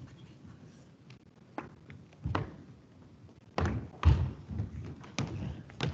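Several irregular thuds and knocks, a few sharp ones spaced unevenly over several seconds, the loudest about two-thirds of the way through, over low room noise.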